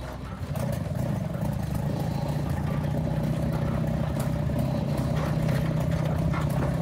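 Lada four-cylinder engine converted to two-stroke, turning over with a steady drone that comes in about half a second in, with some faint clatter, as it struggles to run.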